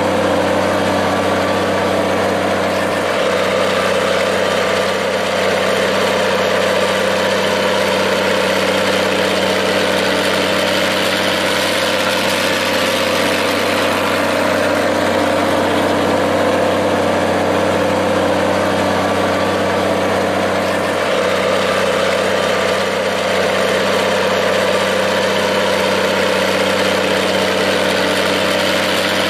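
Minneapolis-Moline tractor engine idling steadily.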